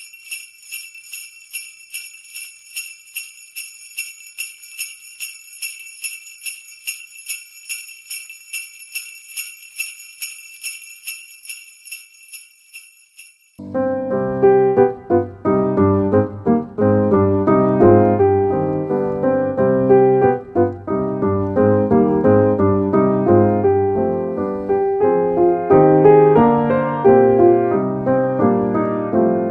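Jingle bells shaken in a steady rhythm of about three shakes a second. About halfway through they stop and piano music begins, playing on in chords and melody.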